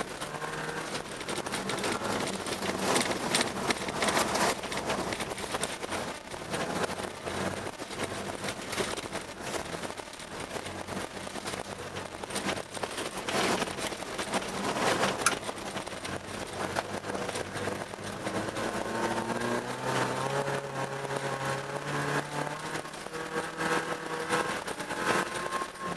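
Car engine and tyres heard from inside the cabin while driving on a snow-covered ice track. There is a steady rush of tyres and spraying snow, with louder gusts now and then. The engine note rises and falls more plainly in the second half as the driver works the throttle.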